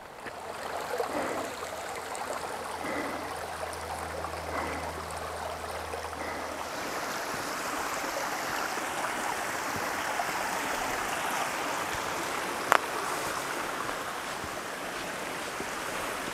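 Small rocky woodland stream flowing: a steady rushing babble of water. A single sharp click about three-quarters of the way through.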